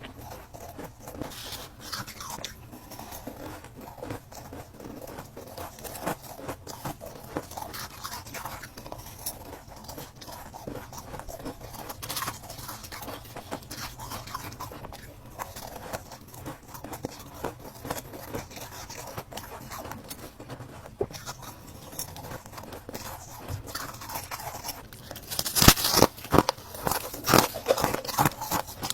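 Ice being bitten and chewed close to the microphone: a continuous run of small crackling crunches, with a burst of much louder crunching bites near the end.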